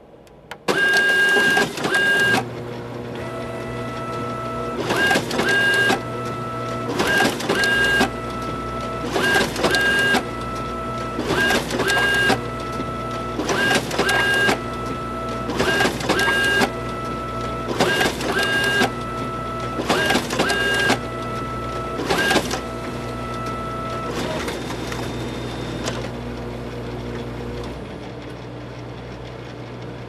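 Photocopier making a run of copies. It starts loud a little under a second in, then runs with a steady hum while a sheet passes through about every two seconds, each pass heard as a pair of louder mechanical strokes. The feeding stops a little over twenty seconds in and the machine hums on until near the end.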